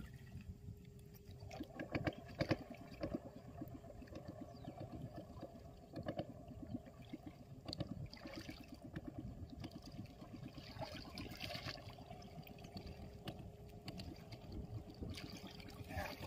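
Faint water sloshing and trickling around a small boat, with scattered light knocks and small splashes.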